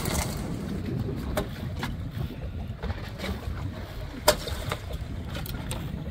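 Wind buffeting a phone microphone on an open boat at sea, a low, steady rumble, with scattered light taps and one sharp click about four seconds in.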